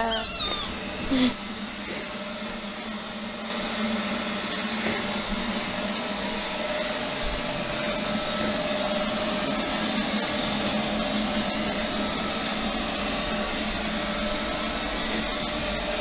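Neato Robotics robot vacuum running, a steady whirring hum of its motor and fan that gets a little louder about three and a half seconds in. A child's short voice sounds come in the first second or so.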